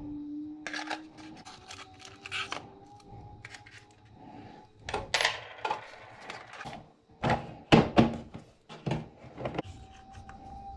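Small hard plastic and metal parts clicking, tapping and clattering as a rotary-tool accessory kit is handled: discs lifted from their plastic holder and the case's compartments rattled, in irregular sharp knocks, the loudest clustered in the middle.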